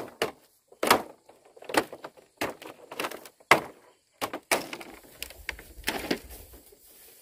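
Dry split-bamboo slats being struck and broken apart: a run of sharp knocks and cracks, about one a second, thinning out near the end.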